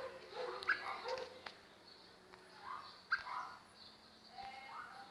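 Squirrel cuckoo (alma-de-gato) giving its cat-like mewing call, a sharp high note dropping into lower notes. The call comes twice, about two and a half seconds apart, with a third starting near the end.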